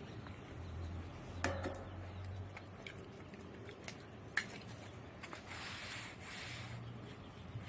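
Hands rubbing and smoothing a thin sheet of petir bread dough on a round wooden board, a soft rustling swish most noticeable near the end. A couple of sharp taps stand out, one early and one about halfway through.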